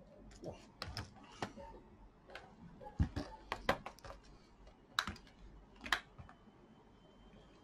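Plastic casing of an HP laptop being handled and turned over on a table: a string of irregular clicks and knocks, the loudest around the middle.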